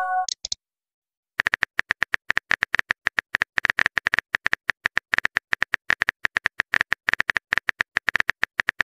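The short chime of an arriving message ends at the very start. About a second and a half in, rapid phone-keyboard tap clicks begin, several a second, as a message is typed in a texting-story app, and they keep going.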